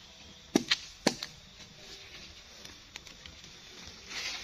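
A machete chopping into a felled coconut palm trunk: three or four sharp strikes in quick succession about half a second in. Near the end comes a rustle of dry palm fronds underfoot.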